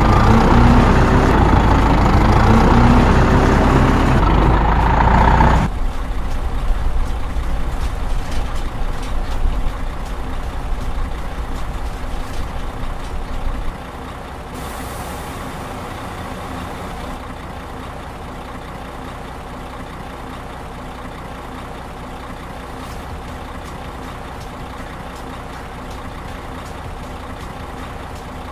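Heavy truck engines running. A loud stretch with rising pitched tones cuts off abruptly about five seconds in, then comes a steadier engine hum that drops in level after about fourteen seconds.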